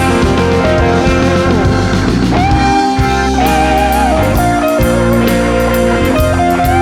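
Blues-rock band playing an instrumental passage: a lead guitar holds long notes that bend and wobble with vibrato over bass and drums.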